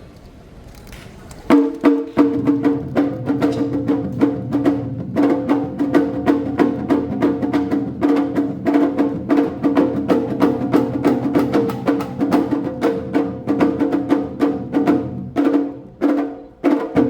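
Awa Odori festival band music: percussion strikes in a fast, even beat with pitched instruments sounding over it, starting loudly about a second and a half in after a quieter stretch.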